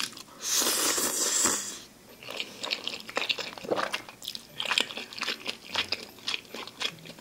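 A mouthful of jjajang (black-bean-sauce) ramen noodles slurped in with a long hiss lasting about a second, followed by wet chewing with many small mouth clicks close to the microphone.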